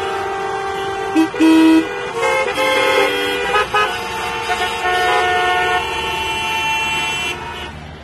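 Many vehicle horns honking at once in city traffic: overlapping long and short blasts at different pitches, with the loudest blast about a second and a half in. The din dies away near the end.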